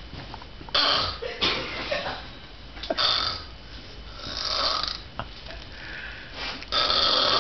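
A girl snoring: loud snores come at irregular intervals of one to two seconds, with quieter breathing between them.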